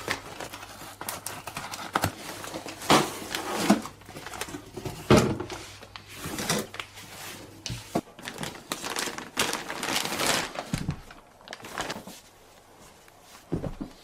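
Irregular rustling and crinkling of things being handled, broken by clicks and a few louder knocks.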